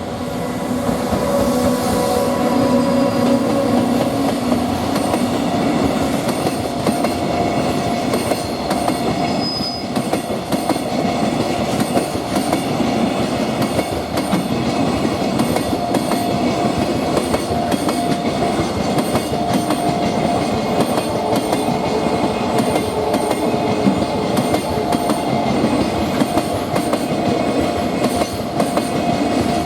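Long freight train passing a level crossing, its wheels clattering steadily over the rail joints. A level-crossing warning bell dings about twice a second throughout.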